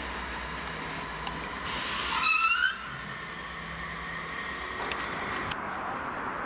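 Standing DB E 40 electric locomotive humming steadily. About two seconds in comes a sharp hiss of released compressed air with a rising whistle, lasting about a second and louder than the hum.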